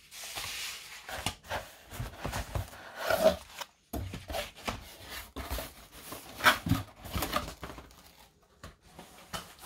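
Cardboard box and its paper packing being handled: irregular rustling, scraping and soft knocks as the contents are taken out and the box flaps are folded.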